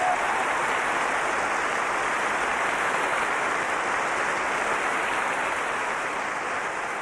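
Studio audience applauding steadily, fading slightly near the end.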